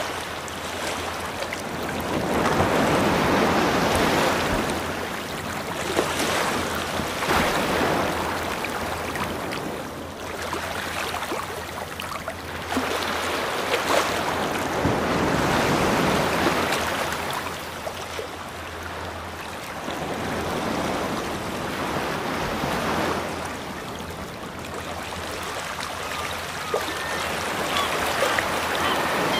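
Ocean waves washing in and drawing back, the surf noise swelling and falling every few seconds.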